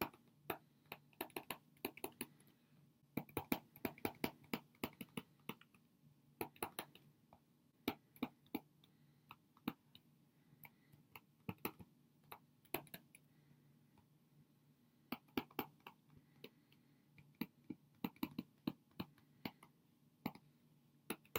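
Stylus tapping and clicking on a tablet while handwriting: irregular clusters of quick, sharp clicks with short pauses between words, over a faint low hum.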